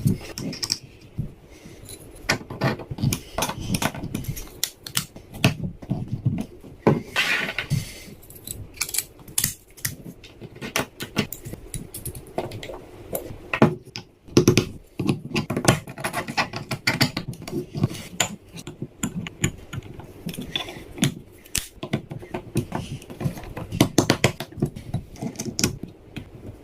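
3D-printed two-stage planetary gearbox parts clicking and clattering, with irregular knocks of hard plastic against plastic as the gears are handled and turned.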